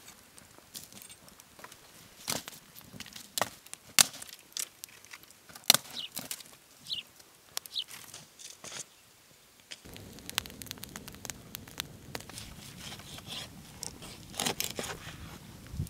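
Sharp, scattered cracks and clicks of dry sticks and metal fire tongs being worked over a campfire's embers. About ten seconds in, the sound changes to a steadier low background with a knife cutting raw beef ribs on a wooden board, with a cluster of cracks near the end.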